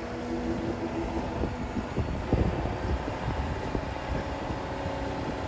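Merlo telehandler's diesel engine running under load while its hydraulics raise the telescopic boom and bucket to full height, with a steady hydraulic whine over the engine.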